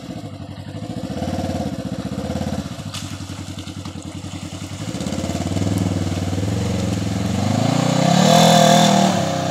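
Polaris RZR 900 side-by-side's twin-cylinder engine running at part throttle as it reverses into a mud hole, then revving up, loudest about eight and a half seconds in, with the wheels churning through muddy water, before easing off.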